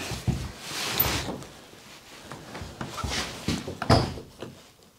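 Wooden interior door being handled and opened: clicks of the latch and a few knocks, with some rustling between them; the sharpest knock comes near the end.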